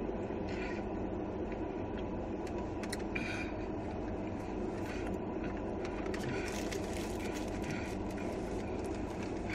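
Steady hum and hiss inside a car cabin, with faint mouth clicks from chewing curly fries and a sandwich.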